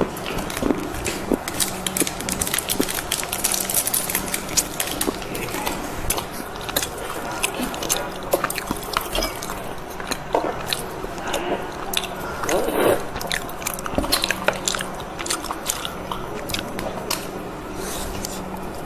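Close-miked eating sounds: bites and chewing, with a dense run of small sharp crunches and mouth clicks.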